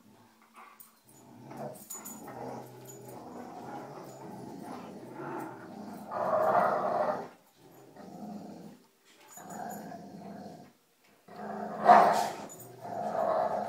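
Dogs growling in play as they wrestle and tug, in rough bouts broken by short pauses, with one sharp, loud outburst near the end.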